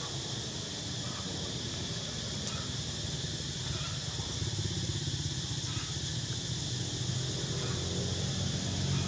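A low engine hum that gets louder about halfway through, over a steady high-pitched hiss.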